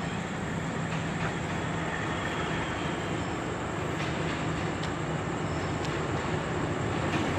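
Alsthom diesel-electric locomotive approaching slowly at the head of a passenger train, its engine a steady low drone growing gradually louder.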